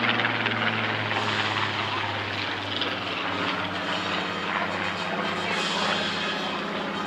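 Supermarine Spitfire PR XIX in display flight, its Rolls-Royce Griffon V12 engine and propeller making a steady, low drone.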